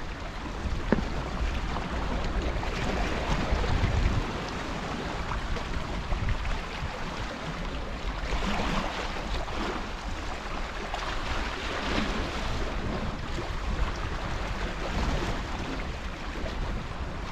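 Wind buffeting the microphone over seawater washing against the shoreline rocks, the rush swelling and easing every few seconds. A single small knock about a second in.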